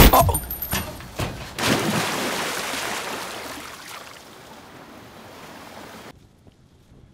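A loud bang at the very start, followed by the rushing noise of sea waves and wind that slowly fades and drops away about six seconds in.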